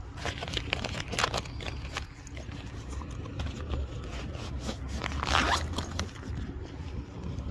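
Hand rubbing and scraping against a phone's microphone while the phone is handled, with two louder rasping scrapes, about a second in and about five seconds in, over a low rumble.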